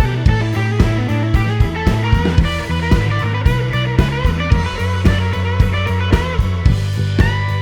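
Background music: a rock track with electric guitar, bass and a steady drum beat.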